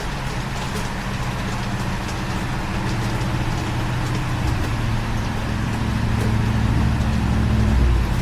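An engine running steadily with a low hum, growing louder during the second half and then dropping off just before the end.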